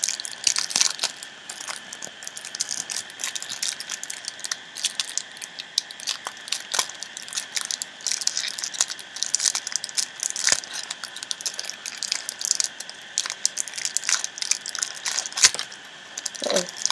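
Foil trading-card packet crinkled and torn open by hand: a dense, irregular run of crackles and crinkles as the wrapper is worked and pulled apart.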